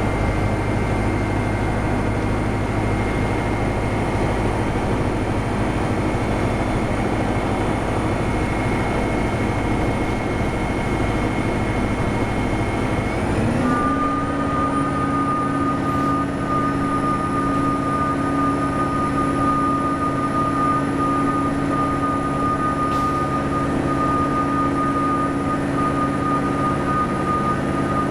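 Diesel engine of a NABI 436 transit bus under way at speed, with its turbocharger whistling steadily. About halfway through, the whistle and engine tones rise briefly and settle at a new, clearer pitch while the low rumble drops away.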